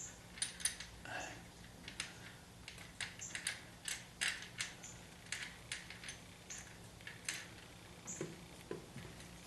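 Irregular light metallic clicks and taps, one or two a second, from hand work threading the speedometer cable fitting and its retaining bolt into a car transmission, over a faint steady hum.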